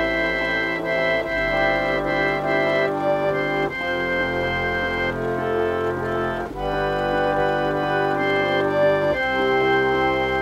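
Hinners chapel reed organ, a foot-pumped pump organ, played in slow, sustained chords that change every two to three seconds.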